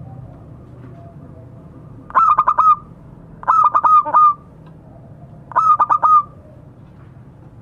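Zebra dove (perkutut) cooing: three short phrases of quick, rippling notes, the first about two seconds in, the next at about three and a half seconds, the last at about five and a half seconds.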